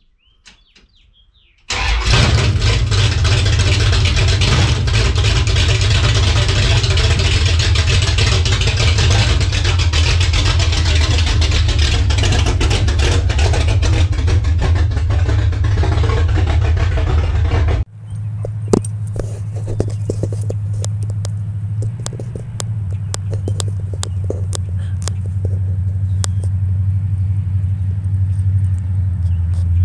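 A 408-cubic-inch stroker V8 running through open headers with no mufflers fires up about two seconds in and runs loud. From about two-thirds of the way on it is a quieter, steadier low rumble, with a slight drop in pitch a little past that.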